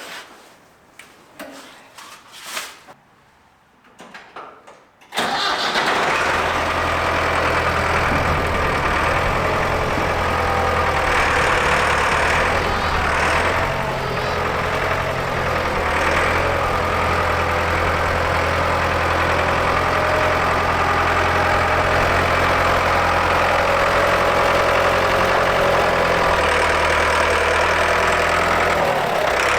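A few faint clicks, then about five seconds in an engine comes on suddenly and runs steadily at idle, with a strong low hum.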